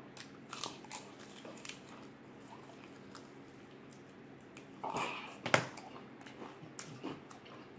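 A person eating close to the microphone: faint chewing and small mouth clicks, with a louder, brief smack or bite about five seconds in.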